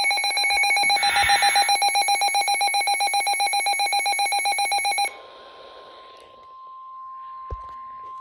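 A weather radio receiver's alert alarm beeps rapidly and loudly and stops abruptly about five seconds in. It is followed by the quieter, steady single-pitch NOAA Weather Radio warning alarm tone that comes before a warning message. There is a single low thump near the end.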